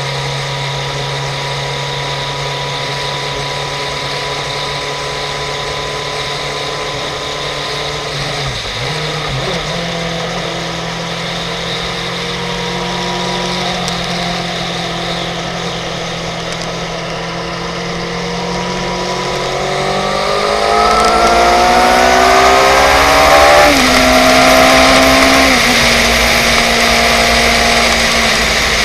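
A 2005 Suzuki GSX-R750's inline-four engine under way, heard from the bike. It runs steadily at first and steps up in pitch with a gear change about a third of the way in. About two-thirds of the way through it revs up and gets louder under acceleration, drops sharply with a gear change, then settles at a steady higher speed.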